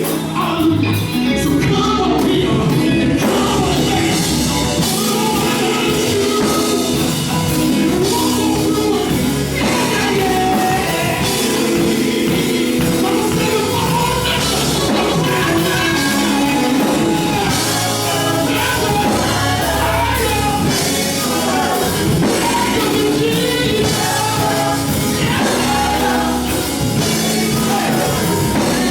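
Rock-style band music with singing, steady and loud throughout.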